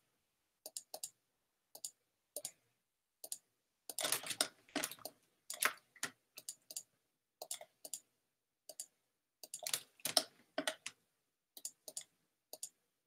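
Computer mouse and keyboard clicks while selecting faces in 3D software: irregular single and paired clicks, with denser flurries about four seconds in and again about ten seconds in.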